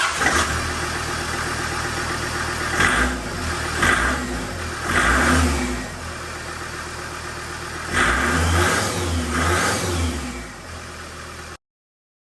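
Land Rover TD5 five-cylinder turbodiesel engine running, blipped up in revs several times: a few short revs a few seconds in, then more from about 8 to 10 seconds.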